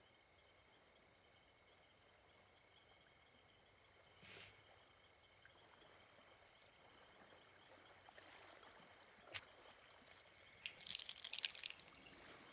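Near silence: faint room tone with a thin, steady high chirring, a single soft click about nine seconds in, and a brief faint rustle shortly after.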